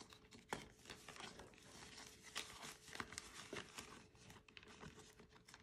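Faint rustling and crinkling of paper bills and the clear plastic pouch pages of a cash binder being handled, with scattered small clicks.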